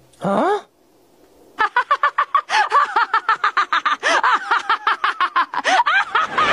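A woman laughing hard in a rapid run of short, high-pitched bursts, beginning about a second and a half in.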